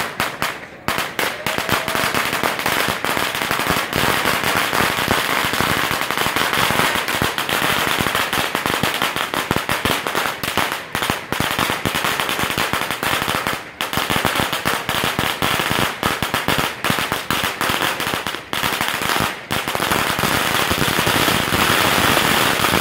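Strings of firecrackers going off in a rapid, continuous crackle of bangs, broken by a few brief gaps.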